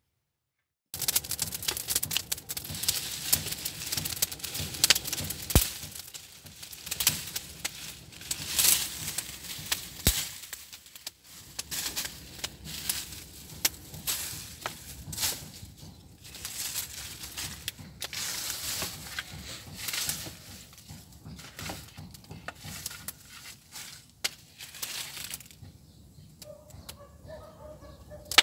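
Wood fire burning in the mouth of a traditional mud-built wood-fired bread oven, crackling and popping densely, starting about a second in.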